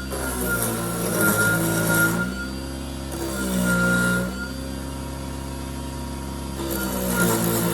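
Wood lathe motor running with a steady whine, while a turning tool cuts a glued bamboo blank in several passes, heard as bursts of hissing chatter.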